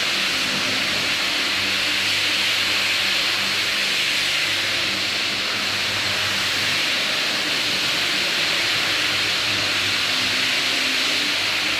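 Floor buffer running steadily with 80-grit abrasive sanding a hardwood floor: a continuous hiss over a low motor hum.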